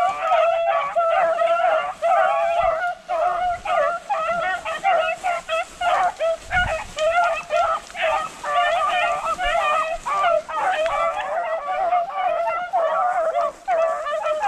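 Pack of beagles baying nonstop, several voices overlapping in a steady chorus of short wavering bawls: hounds in full cry running a rabbit's scent trail.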